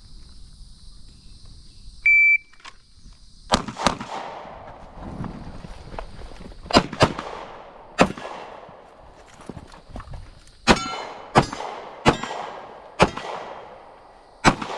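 A shot timer's start beep, one short high tone about two seconds in, followed by about ten pistol shots fired in quick pairs and singles with pauses between them, each ringing out with an outdoor echo.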